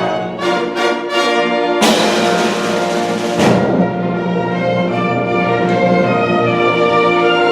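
Symphony orchestra playing, with brass to the fore. Several sharp accented hits come in the first half, the strongest two about two and three and a half seconds in, before the orchestra settles into sustained full chords.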